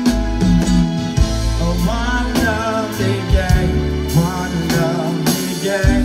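Live band music with a steady beat, a low bass line, and a wavering melodic line held through the middle.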